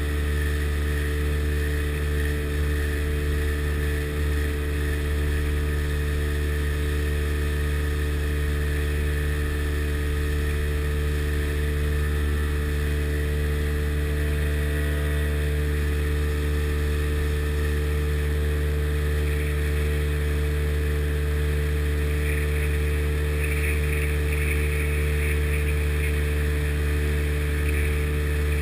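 Sea Ray Sea Rayder jet boat's two-stroke engine running under way at a steady, unchanging speed, a constant low drone.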